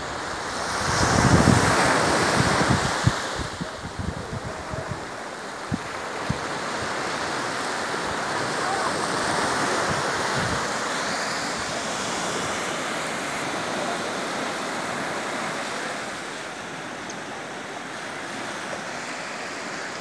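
Low sea waves breaking and washing up a sandy beach, a steady rush of surf that is loudest between about one and three seconds in. Wind buffets the microphone in the first few seconds.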